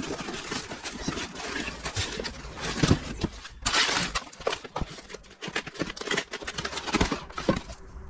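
Cardboard packaging being handled: box flaps and a cardboard insert scrape, crackle and rustle as the box is opened and the packing lifted out, with a louder rustle about four seconds in.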